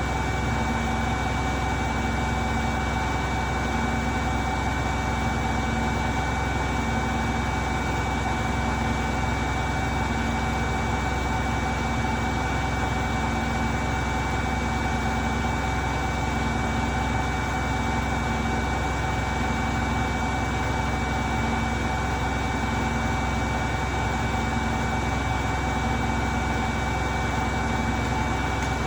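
Beko washing machine drum spinning at high speed, a steady motor whine over a low hum with a slow, even pulsing.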